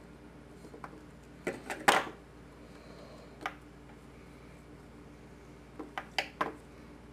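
Sharp clicks and light knocks of small tools being handled on a workbench during desoldering: a quick cluster about a second and a half in, a single click a little later and another cluster near the end, over a faint steady hum.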